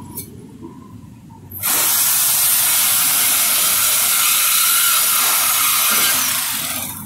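Handheld power cutting tool working on the exhaust pipe of a Dodge Charger R/T to remove the mid-muffler: a loud, steady hiss starts about a second and a half in and stops about six seconds in.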